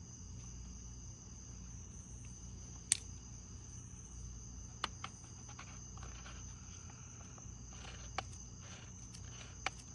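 Crickets trilling steadily in one high, unbroken tone, with a few sharp clicks and taps from hands and tools working the chainsaw's bar and chain tensioner.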